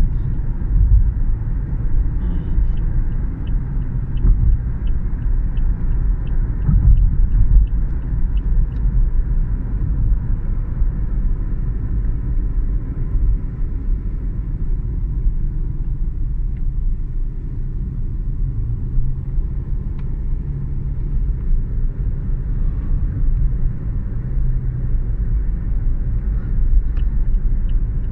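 Steady low rumble of city traffic. A faint run of evenly spaced high ticks, about two a second, comes a couple of seconds in and again near the end.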